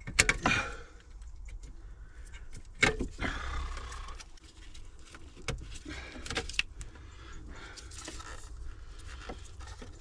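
Scattered clicks and knocks of hands and tools working on plastic car interior trim, with the loudest just after the start and again about three seconds in, over a low steady background hum.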